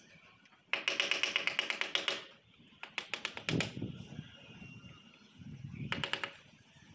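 Rapid tapping on a ceramic wall tile with a handheld tool to bed it into place: a fast run of taps for just over a second about a second in, then shorter runs near the middle and near the end.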